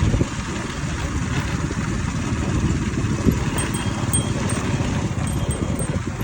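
A small engine running steadily with a low, rapidly pulsing rumble, with one brief louder knock about three seconds in.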